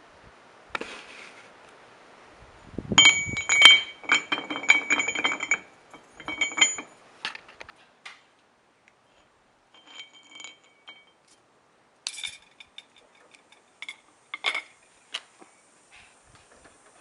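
Steel clinking and ringing: a quick run of light metal-on-metal strikes about three seconds in, each leaving a high ring, then scattered single clinks.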